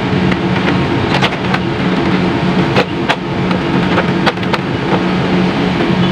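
Plastic motorcycle fairing panels being pressed and clipped back onto the frame, giving about six sharp clicks in pairs, over a steady machine hum.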